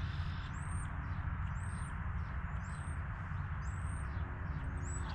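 A small bird calling outdoors, a short high note repeated about once a second, over a steady low rumble.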